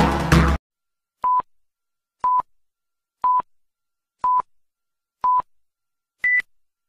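Electronic music stops about half a second in. A film-leader countdown follows: five short beeps at one pitch, a second apart, then a final beep at a higher pitch.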